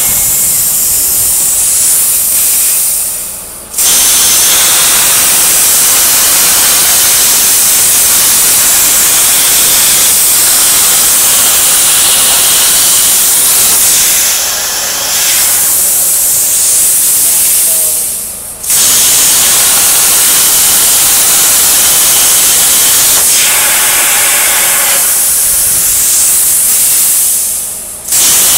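CNC plasma cutter torch cutting 11 gauge mild steel: a loud, steady hiss of the arc and gas jet. Three times, about 3 s in, about 18 s in and near the end, it fades out as the torch stops between cuts and then starts again abruptly.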